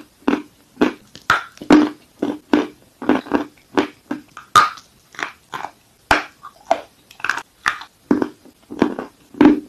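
Close-miked chewing of a crunchy piece of clay: sharp, dry crunches at about two a second as the mouthful is bitten and ground down.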